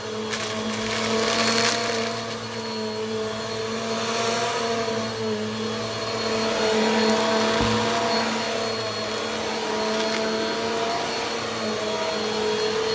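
Bissell vacuum cleaner running steadily, a motor hum over the rush of air, swelling and easing a little as it is worked.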